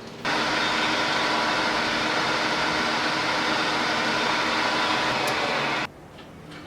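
A shop power tool running steadily with a loud whir. It starts abruptly just after the beginning and cuts off suddenly about six seconds in.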